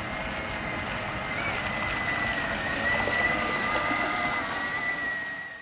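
Cobia sport boat's engine running steadily at speed, a high whine that slowly drops in pitch, over the rush of water.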